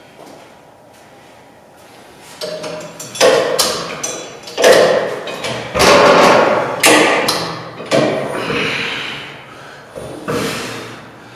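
Weight stack of an Inflight Fitness cable machine clanking with each rep of a back row. Starting about two seconds in, a sharp metallic clank comes roughly once a second, each ringing briefly.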